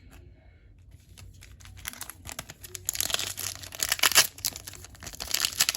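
Foil wrapper of a Pokémon card booster pack crinkling and tearing as it is opened, starting about two seconds in and getting louder and busier.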